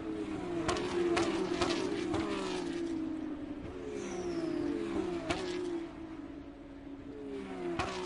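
Formula 1 cars racing past a grandstand one after another, each engine's high note falling in pitch as it goes by. A quick bunch of cars passes in the first two or three seconds, then single cars about five seconds in and near the end.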